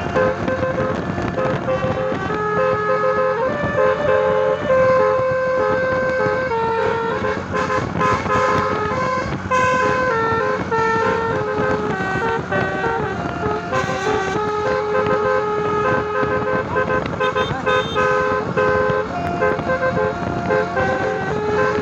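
Tour bus's 'telolet basuri' musical air horn playing a long melody of held notes stepping from pitch to pitch, over bus engine and road noise.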